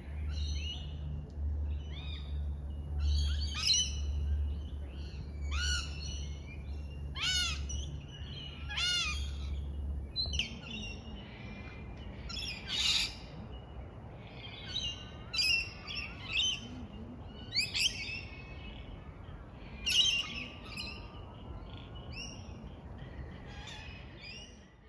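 Wild birds calling in the treetops: repeated short chirps and downward-sweeping whistled calls a second or two apart, over a low rumble that fades out about ten seconds in.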